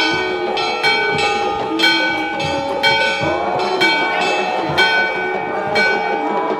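Temple bells rung over and over for an aarti, a strike about once a second with lighter strokes between, each note ringing on into the next.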